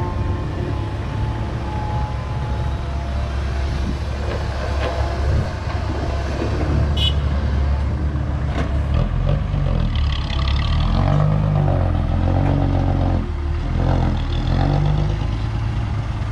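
Heavy diesel engine running steadily, its pitch rising and falling under changing load from about halfway through, with a few sharp metallic clanks, one ringing briefly.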